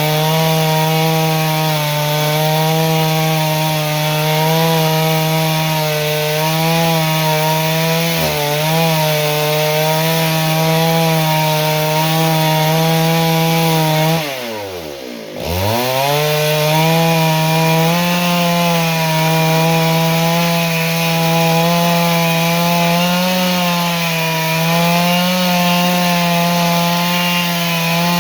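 Two-stroke chainsaw running at high revs, holding steady for long stretches; about halfway through the engine speed drops sharply and then climbs back up.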